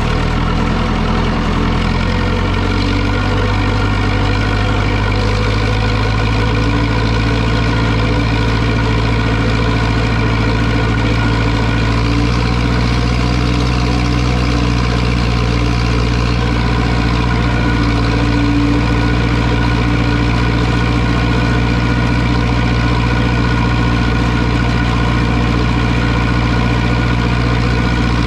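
Zetor 6245 tractor's four-cylinder diesel engine running steadily, its note shifting slightly a couple of seconds in and again around twelve seconds in.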